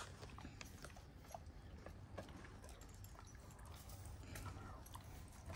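Faint chewing and mouth clicks from a young Kangal dog mouthing something, a scatter of small irregular clicks.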